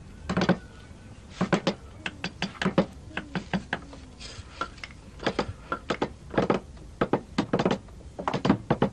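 Wood carving: a carving chisel knocks sharply into a wooden panel in short, irregular clusters of two to four strikes.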